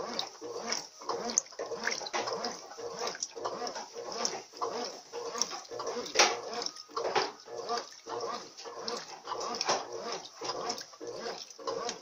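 Consul Maré CWL75 top-loading washing machine agitating a load in water on its turbo wash setting: quick rhythmic churning and sloshing strokes, about two to three a second, over a steady motor hum.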